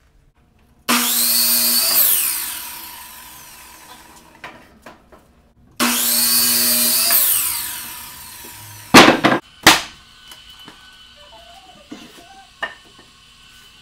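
Compound miter saw making two cuts through a lumber board about five seconds apart, each a short burst of motor whine that winds down with falling pitch after the cut. A few seconds later come two or three sharp, loud knocks.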